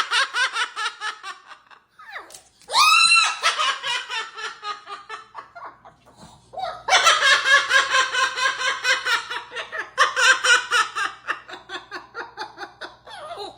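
Long runs of rapid, repeated laughter in quick pulses, with a short pause about six seconds in. A single rising-and-falling call comes about three seconds in.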